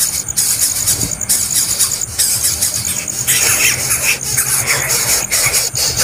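Nestling birds begging with loud, raspy, hissing calls in repeated stretches broken by short pauses, with sharper squealing calls joining about three seconds in.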